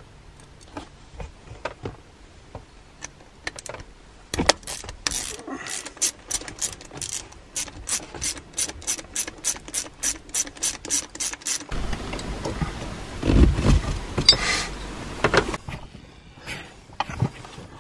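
Hand ratchet wrench clicking steadily, about three clicks a second, as bolts are undone. A louder stretch of metallic clunking and rattling follows near the end.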